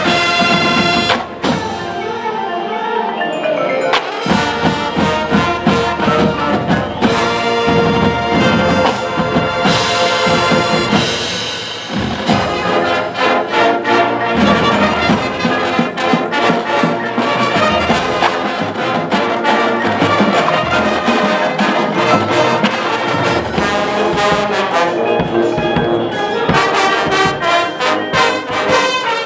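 High school marching band playing its competition show: brass (trumpets and trombones) carrying the melody over drums.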